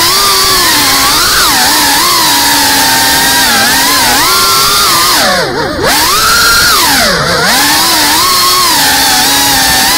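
FPV racing quadcopter's brushless motors whining, the pitch rising and falling constantly with the throttle. Twice, about five and a half and seven seconds in, the whine drops sharply in pitch and climbs back as the throttle is chopped and punched again.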